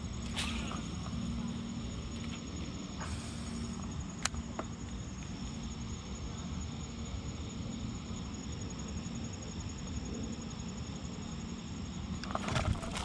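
Crickets or similar insects trilling steadily at a high pitch over a low, even rumble, with a couple of sharp clicks early on and a quick flurry of clicks and knocks near the end.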